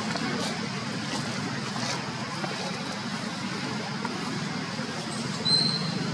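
Steady low rumble of outdoor background noise, with faint ticks and one brief high squeak about five and a half seconds in.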